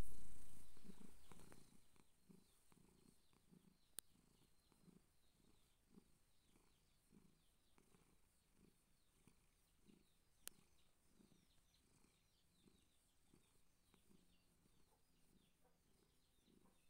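Persian cat purring softly, a low rumble that pulses about twice a second with its breathing. A louder noise at the very start fades away within two seconds, two sharp clicks come about four and ten seconds in, and faint high chirps sound in the background.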